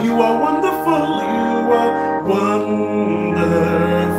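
A man singing a worship song while playing held chords on an electronic keyboard.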